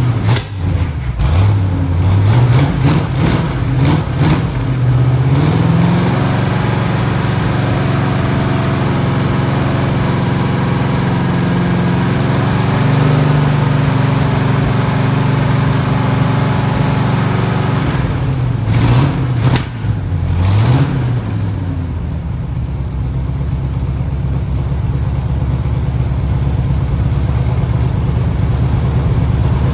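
Freshly rebuilt Oldsmobile 403 V8 with a Comp Cams camshaft running on its first start, held at a fast idle to break in the new cam. The revs rise and fall several times in the first few seconds and again about twenty seconds in, with a few sharp clicks, then settle to a steady speed.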